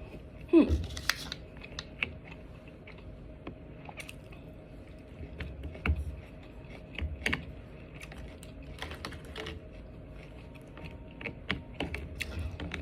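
Scattered light clicks and taps of eating utensils and plastic food packaging being handled, with a short falling squeak about half a second in.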